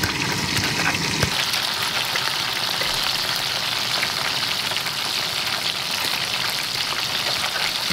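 Pieces of snakehead fish frying in hot oil in a pan: a steady, even sizzle with fine crackling throughout.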